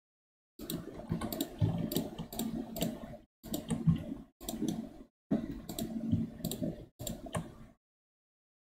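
Computer keyboard keys and mouse buttons clicking in quick runs, in several bursts with dead-silent gaps between them.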